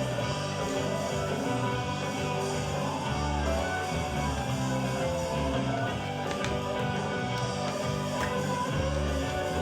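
Instrumental passage of a song: a plucked string instrument over held chords and a bass line, with no singing.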